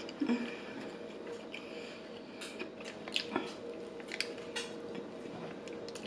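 A person chewing and biting food close to the microphone, with scattered short clicks and pops from the mouth.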